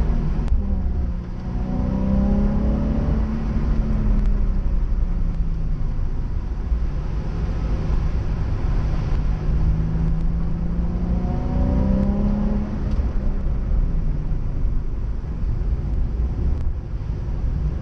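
Nissan 350Z's 3.5-litre V6 engine under track driving, revs climbing and dropping several times as it accelerates and lifts off, over a steady low rumble.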